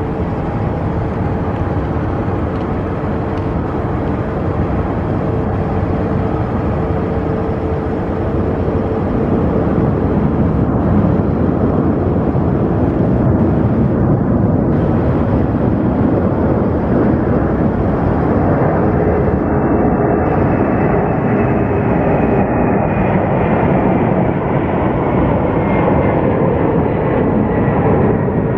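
Boeing 767's twin turbofan engines at takeoff power as the airliner rolls down the runway, lifts off and climbs away. It is a steady jet noise that grows louder about ten seconds in, with a high whine that slowly falls in pitch near the end.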